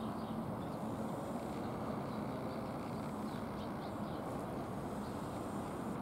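Steady outdoor background noise, a low even rumble, with a few faint high chirps, most of them around the middle.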